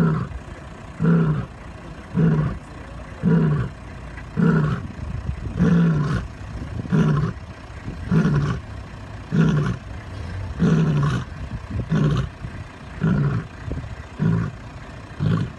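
Lioness roaring: a long, even series of short, deep grunting roars, a little under one a second.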